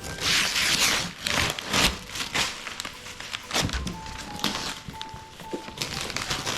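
Gift wrapping paper being torn and crinkled: a run of loud rustling tears in the first two seconds or so, then lighter scattered rustles. A simple background tune of single notes plays along.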